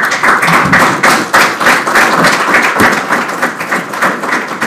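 Audience applauding: many hands clapping at once in a dense, steady patter that eases a little near the end.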